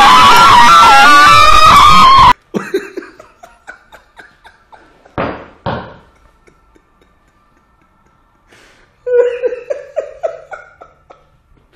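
A jumpscare scream, very loud and distorted with a wavering high pitch, cuts off suddenly about two seconds in. It is followed by a man's stifled laughter, quiet at first, with a louder burst of laughing about nine seconds in.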